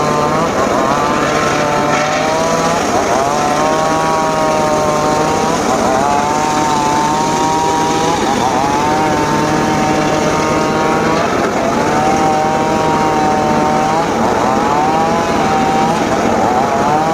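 Homemade circular saw cutting teak wood, a loud steady whine whose pitch sags several times as the blade bites into the wood and climbs back as it frees.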